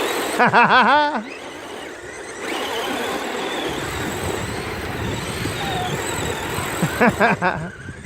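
Electric motors of radio-controlled trucks whining steadily under load as the tethered trucks pull against each other with wheels spinning in a tug of war. A wavering, warbling squeal cuts in about half a second in and again near the end.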